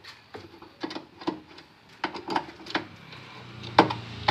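Phillips screwdriver working a stiff screw out of the car's hatch-door striker: a string of irregular metallic clicks and creaks as the screw breaks loose and turns, the sharpest click nearly four seconds in.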